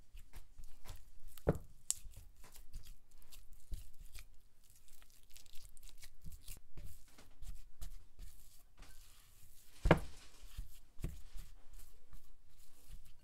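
Silicone spatula stirring and pressing thick sweet bean paste mixed with black sesame paste in a glass bowl: irregular sticky scraping and squishing strokes, with two sharper knocks, about a second and a half in and again about ten seconds in.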